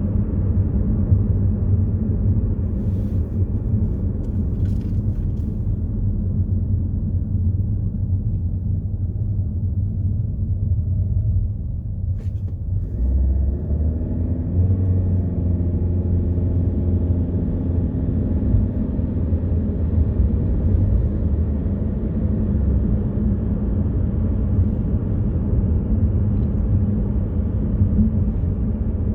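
Steady low rumble of a car's engine and road noise heard from inside the cabin while driving. It dips briefly about twelve seconds in, then picks up again.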